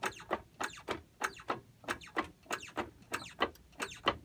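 Dake press being worked by hand, bearing down on a bent threaded rod to straighten it. It gives short, sharp clicks and squeaks that come in pairs about every 0.6 s, one pair per stroke.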